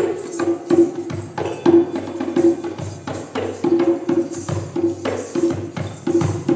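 Dance music with a quick, steady percussion beat and a short pitched note repeated over and over.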